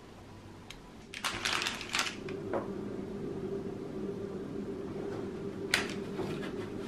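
Baking parchment crinkling and rustling as it is handled: a burst of crackling about a second in, a short crackle near the end, and a steady low hum underneath from about two seconds in.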